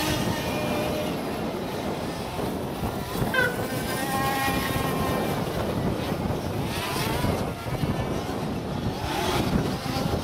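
Small two-stroke petrol engines of large-scale radio-controlled buggies racing, buzzing and revving up and down as the cars brake and accelerate through the corners, with a sharp rising whine about three seconds in.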